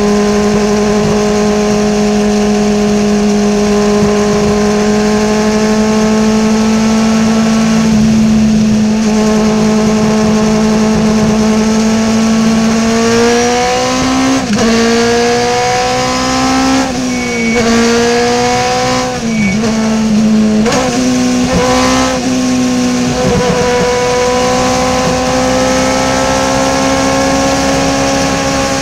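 Race car engine heard from inside the open cockpit, running at steady revs over constant wind and road noise. Partway through, the engine note drops sharply and climbs back several times in quick succession, then settles into a steady note that slowly rises as the car gathers speed.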